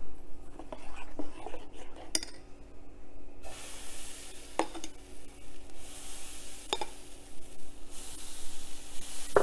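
Sprouts dosa batter sizzling as it is ladled onto a hot non-stick pan, the hiss starting about a third of the way in and coming and going, with a few light clinks of the steel ladle. The pan has been heated on high flame.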